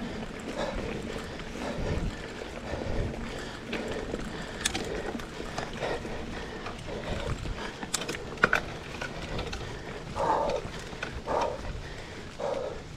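GT Aggressor Pro mountain bike ridden over a dirt forest singletrack: steady tyre and trail noise with the bike rattling and a few sharp knocks. Near the end the rider's breathing comes in short loud puffs about a second apart.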